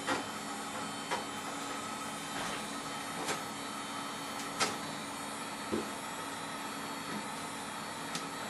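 Sharp knocks roughly once a second, from tools chipping old sound-deadening material off the car's sheet-metal body, over a steady hum.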